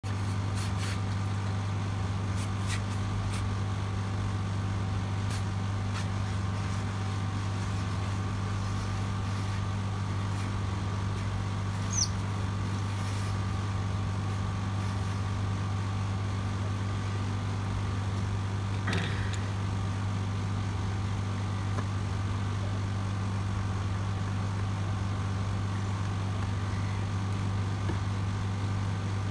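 Steady low electrical hum of aquarium equipment, with a few faint clicks in the first seconds and two brief chirps about twelve and nineteen seconds in.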